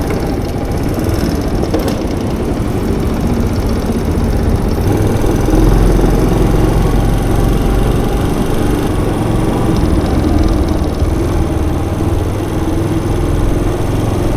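Honda Little Cub's small 88cc single-cylinder engine running steadily, with a dense low rumble on the microphone.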